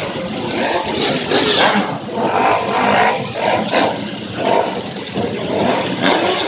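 Car engines running close by, loud and uneven, the level rising and falling.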